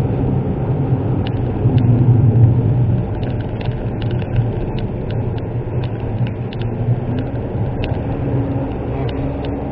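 Inside the cabin of a Suzuki Wagon R kei car with a 660 cc three-cylinder engine, driving on a winding road: steady low engine and road noise, a little quieter after about three seconds, with scattered light ticks from the cabin.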